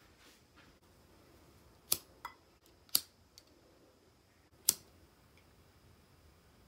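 A handheld lighter being sparked to light a tea light candle: a few sharp clicks, the three loudest about a second or more apart, with fainter clicks between.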